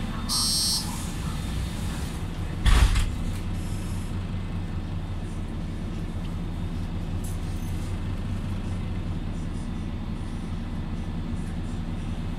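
Inside a Mercedes-Benz Conecto LF city bus: a high-pitched door warning beeper sounds once more at the very start. A loud, short burst of compressed-air hiss comes about two and a half seconds in, then the bus's engine runs with a steady low drone.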